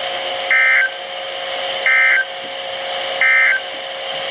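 NOAA Weather Radio sending the EAS/SAME end-of-message code: three short, loud bursts of warbling digital data tones, about 1.4 s apart, over the receiver's steady hum and hiss. This signals the end of the flood warning broadcast.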